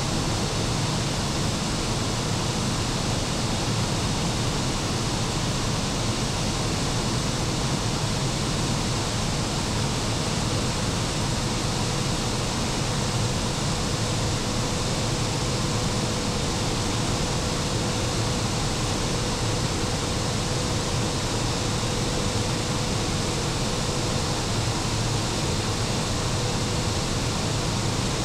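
Machine-room noise of a class E94 electric locomotive underway, heard from inside the machine room: a steady, loud rush of cooling-fan air with a faint steady hum through it.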